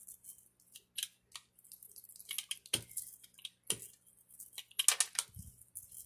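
Rubber brayer rolled back and forth over freshly glued paper collage layers: crinkly paper rustles with a few sharp clicks, the loudest stretch about five seconds in.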